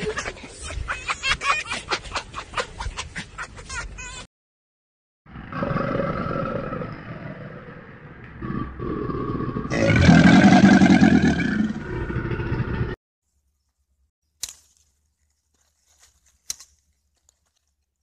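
Wild animal vocalisations in three short segments with brief gaps between them: first a growl made of rapid pulses, then a longer, more even call, with the loudest call starting about ten seconds in. After that it is nearly silent apart from a few faint clicks.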